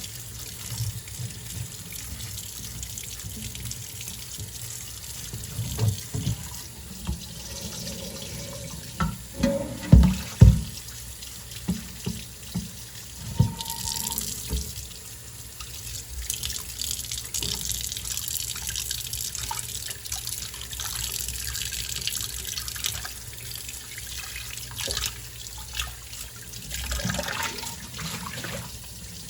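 Tap water running into a sink while dishes are washed by hand. The water grows stronger about halfway through, and dishes knock and clink now and then, loudest twice in quick succession about ten seconds in.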